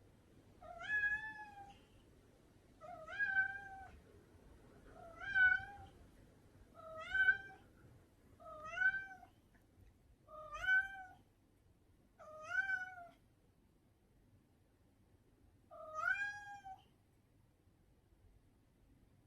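A cat meowing over and over: eight short meows, each rising then falling in pitch, about two seconds apart, with a longer pause before the last one.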